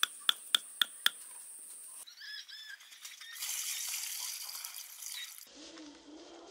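Water poured from a bucket, splashing into a shallow pool, in a steady rush lasting about two seconds. It is preceded by five sharp knocks, about four a second, over a steady high insect-like buzz.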